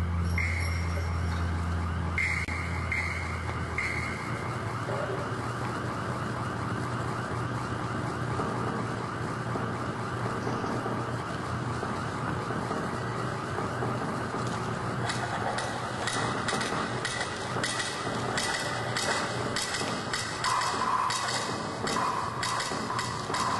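Recorded soundtrack for a modern dance piece played over loudspeakers: a wailing, siren-like sound with a low drone that stops about four seconds in. Sharp knocks join in from a little past the middle.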